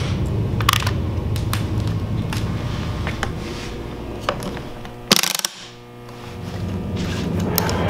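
Levers and switches on a TARDIS console prop clicking and clunking as they are worked, over a low mechanical rumbling. A loud sharp crack comes about five seconds in, the rumble drops briefly, then swells again.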